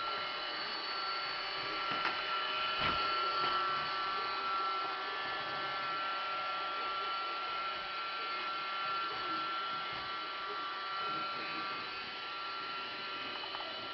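Roomba robot vacuum running steadily, a constant motor whine with a high tone over a hum. A soft knock about three seconds in.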